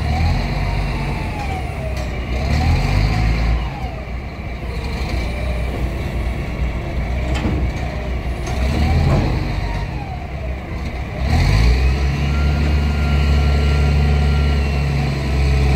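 Scania 112 diesel engine running, its pitch rising and falling several times as it is revved and eased off. About eleven seconds in it settles into a louder, steady drone.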